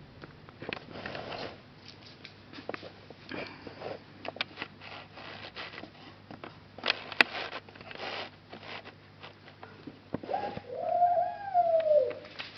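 Scattered light clicks and rustles, then about ten seconds in a single drawn-out cat meow that rises and then falls in pitch.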